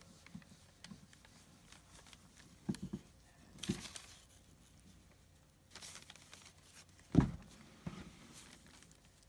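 Soft rustling and a few dull thumps from puppies being handled and shifting on their bedding. The loudest thump comes about seven seconds in.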